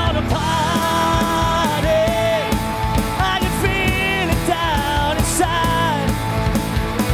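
Live band playing an upbeat rock song with electric guitars, bass and drums, and singing over it.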